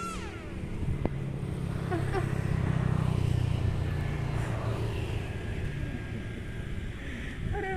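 Electric motor of a foam RC SU-27 jet running at power outdoors, a steady low hum that builds about a second in and fades after the middle, mixed with wind noise. Music ends with a falling pitch right at the start.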